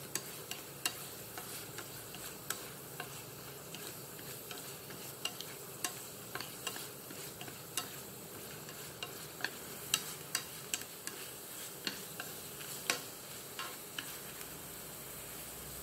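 Shrimp simmering in a fish-sauce, garlic and chili glaze in a pan over low heat: a steady sizzle with sharp, irregular pops and crackles scattered through it.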